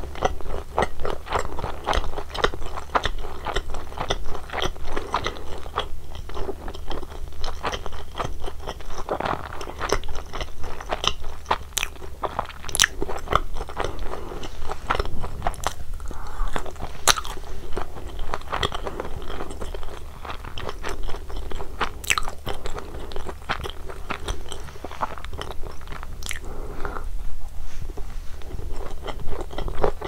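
Close-miked biting and chewing of cheese pizza crust: a dense run of crisp crunches and sharp mouth clicks.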